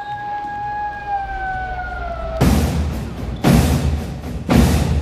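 A long canine howl, held steady and then sinking in pitch until it stops about halfway through. Then three heavy drum booms, about a second apart.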